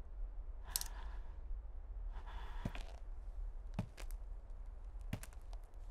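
A breathy exhale about a second in, then a few soft, sharp footfalls spaced about a second apart, over a steady low soundtrack hum.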